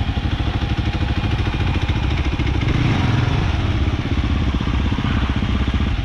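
Kawasaki KLR 650's single-cylinder engine running at low revs with a steady, even chug, swelling briefly about three seconds in.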